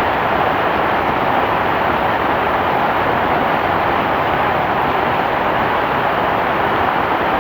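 Heavy rain falling in a steady, dense hiss with no separate drops or thunder standing out.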